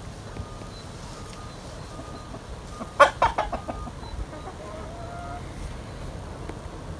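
Chicken clucking: a quick run of several loud clucks about three seconds in, then a quieter, longer call.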